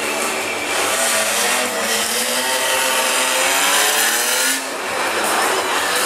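Stunt car's engine revving hard, its pitch climbing and falling back several times as the car slides sideways. The engine drops off briefly about four and a half seconds in, then climbs again.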